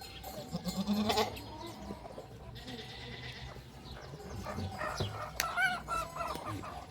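Goats bleating: a short call about a second in, and a longer wavering call a little past the middle.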